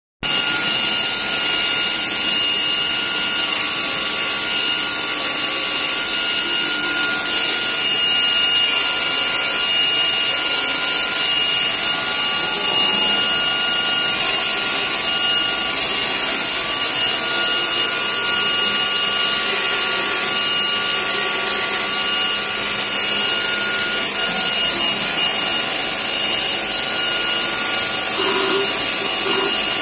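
Morbidelli Author 427S CNC router's spindle running at speed and routing a wooden panel: a loud, steady rush of cutting noise with a high whine made of several steady tones.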